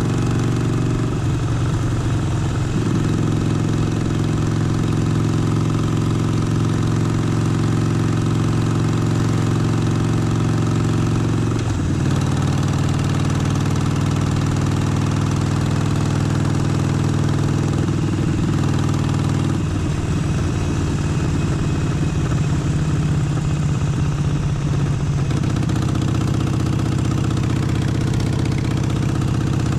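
Harley-Davidson Forty-Eight's air-cooled V-twin running at low, fairly steady engine speed. The note shifts a few times, about 1, 12, 20 and 25 seconds in, as the revs change.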